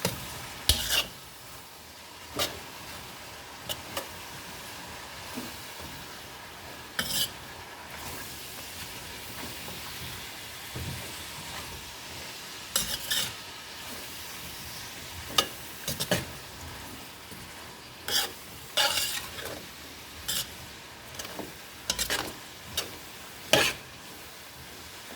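Cabbage frying in a pan with onions and bacon, giving a steady sizzle. A utensil knocks and scrapes against the pan at irregular moments, a dozen or so times, as it is stirred.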